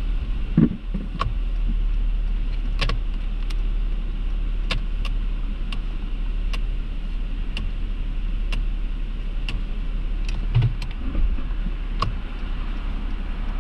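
Vehicle engine idling, heard from inside the cabin as a low steady hum. Light ticks come about once a second, and there is a low thump about half a second in and another about ten and a half seconds in.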